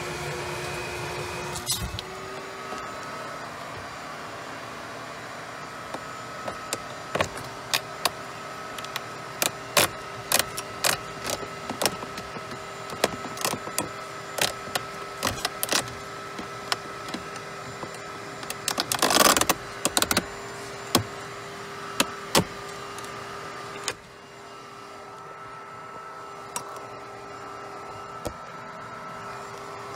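Vacuum cleaner running steadily with its hose nozzle in a car's cabin air filter housing, cleaning out debris. Many sharp clicks and rattles as bits are sucked up and the nozzle knocks against plastic, with a louder clatter about two-thirds of the way through. The sound drops and dulls a little near the end.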